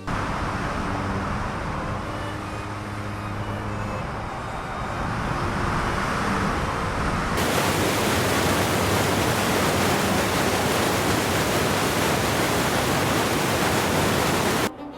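Steady, dense rushing noise from a wilderness field-recording ambience, which becomes fuller and brighter about seven seconds in and cuts off sharply just before the end.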